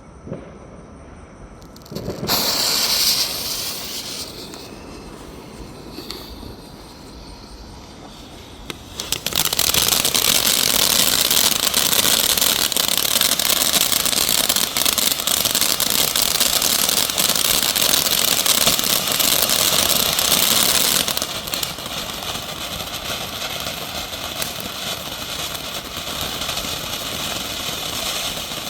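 Ground fireworks fountain: a short hiss of the fuse catching about two seconds in, then about nine seconds in the fountain ignites into a loud, steady crackling hiss of spraying sparks, which drops to a softer hiss about twenty-one seconds in.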